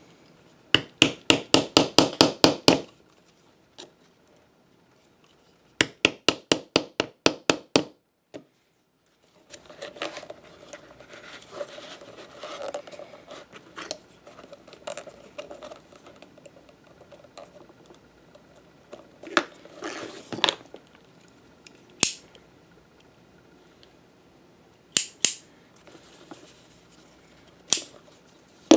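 Two runs of rapid, evenly spaced sharp clicks, about six a second, each lasting about two seconds. Then a leather holster and strap are handled, with rustling and a few single clicks, and a knock near the end.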